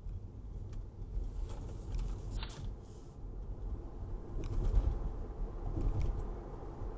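Car engine and road noise heard from inside the car, a low rumble that swells about halfway through. A short sharp click about two and a half seconds in.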